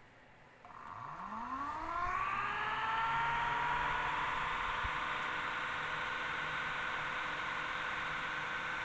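MH34S radiator fan motor switched on and spinning up: a whine rises in pitch for about a second and a half, then holds steady as the motor runs at speed over a hiss.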